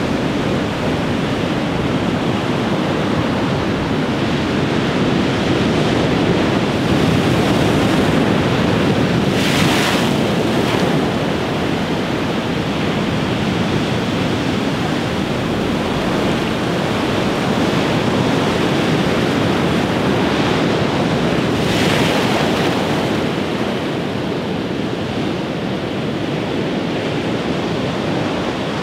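Heavy ocean surf breaking and washing up a sandy beach in a steady, continuous wash, with wind on the microphone. A louder hiss swells briefly about ten seconds in and again about twenty-two seconds in.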